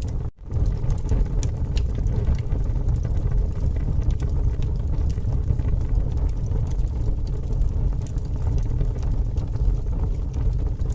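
Bonfire crackling, with scattered sharp pops and snaps over a steady low rumble of the burning fire. The sound cuts out for an instant near the start.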